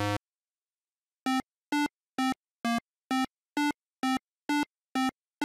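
Retro video-game-style synthesizer beeps. A short note ends right at the start, and about a second later the same short note begins repeating evenly, about twice a second, all at one pitch.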